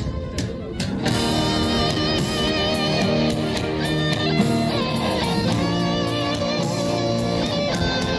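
Guitar music: a guitar strummed and plucked, with a wavering higher melody line above it that fills out about a second in.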